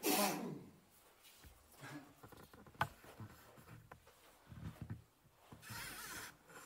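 Scuffing and brushing movement sounds from hiking through a narrow canyon: a loud rustle at the start, a single sharp tap a little under three seconds in, soft scuffs, and a hissing brush near the end.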